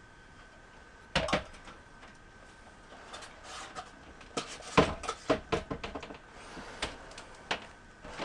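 Knocks and light clatter from handling a plastic Schluter Kerdi-Drain body and pipe as they are set into the drain hole in the shower floor. There is a sharp double knock about a second in, a busier run of knocks around the middle, and a couple of single clicks near the end.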